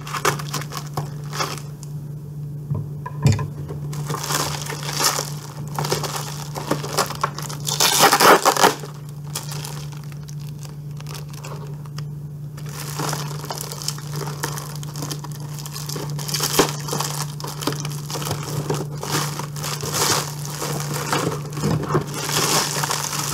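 Heavily taped package being forced open: packing tape and plastic wrapping crinkling, tearing and being cut in irregular rustling rips, loudest about eight seconds in. A steady low hum runs underneath.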